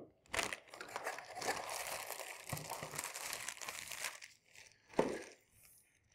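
Thin plastic packaging bag crinkling and rustling as hands handle it, steady crackling for about four seconds, then one brief sharp rustle about five seconds in.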